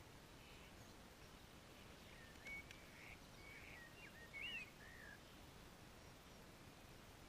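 Faint songbird calls: a short run of chirps and wavering whistles, about two to five seconds in, over a low steady hiss.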